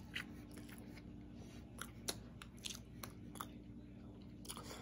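Faint chewing of a forkful of chicken, vegetables and rice, with a few short, sharp mouth or fork clicks scattered through it. A low steady hum runs underneath.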